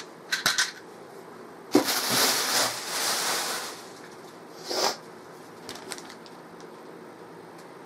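Unpacking noise: a few light clicks, then about two seconds of rustling as packaging and a long plastic component tube are handled, and a short second rustle near the five-second mark.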